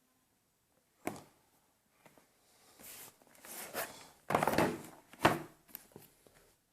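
Handling of a keyboard's cardboard and plastic packaging: a sharp knock about a second in, then a few seconds of rustling and sliding with a loud tap about five seconds in and a few small clicks near the end.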